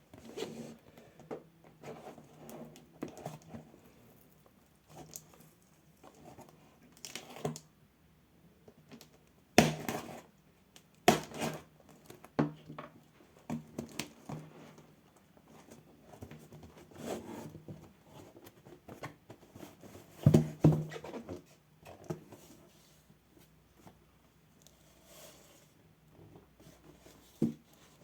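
A parcel being opened by hand: tape tearing and packaging rustling and crinkling, broken by several sharp knocks.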